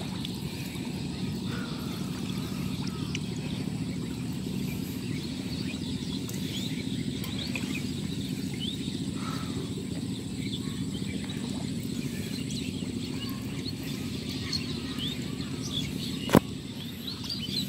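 Outdoor marshland ambience: a steady low rumble with scattered faint bird chirps, and a single sharp click near the end.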